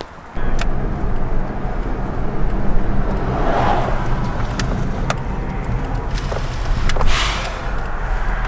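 Car driving on a road, heard from inside the cabin: a steady engine hum and road noise that start suddenly about half a second in. Two swells of rushing noise come about four and seven seconds in.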